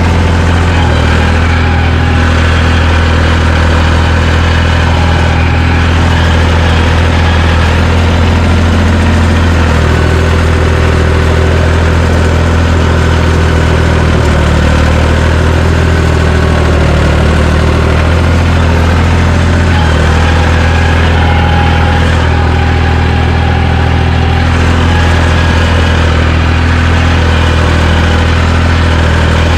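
John Deere 350 crawler dozer's engine running steadily, with a strong low hum and no revving or clear change in load.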